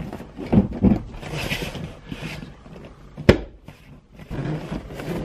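Leather rear seat cushion of a Saab 9-3 being pressed and shoved down into place, leather rubbing and scraping. There are a couple of thumps early and a sharp snap about three seconds in as the cushion is pushed into its clips.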